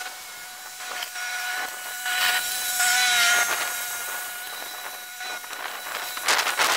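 A small motor running with a steady high whine over a hissing rush, which grows louder in surges near the end.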